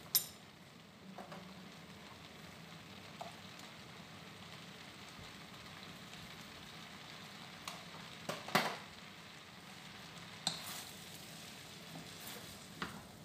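Noodles sizzling faintly in a frying pan, with a few sharp knocks and scrapes of a wooden spatula against the pan as they are stirred, the loudest about eight and a half seconds in.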